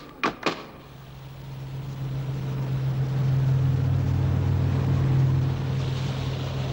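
Boat engine drone, a steady low hum that swells and then fades away, as a boat passing by would.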